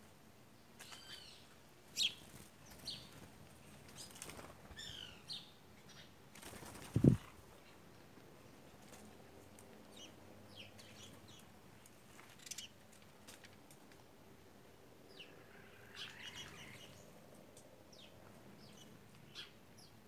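Birds giving short, scattered chirps, with a loud wing flutter close to the microphone about seven seconds in.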